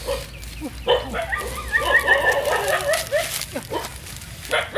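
Dry palm fronds rustling as they are pulled apart by hand, under many short, repeated yapping animal calls, with a quick run of higher calls about a second in.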